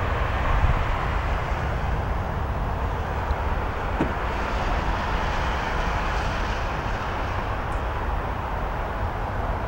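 Steady low rumble and hiss of wind buffeting the microphone outdoors.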